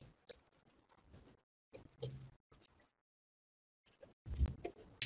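Computer keyboard typing: faint short runs of key clicks, with a pause of about a second past the middle before the clicks resume.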